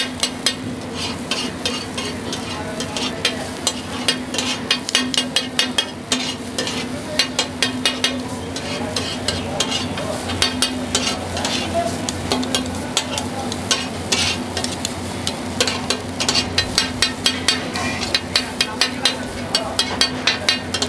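Metal spatula clattering and scraping quickly and irregularly on a flat street-food griddle while an anda shami burger's egg and kebab patty fry and sizzle, over a steady low hum.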